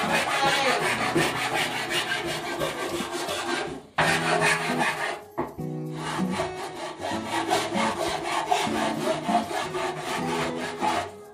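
Handsaw cutting back and forth through a white-painted board in quick, even strokes. The sawing breaks off briefly about five seconds in, then resumes.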